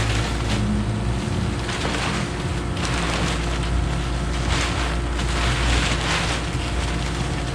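Plastic tarp rustling in several swells as it is pulled over a chest-type ice cream freezer case, over the steady hum of the freezer's refrigeration unit running.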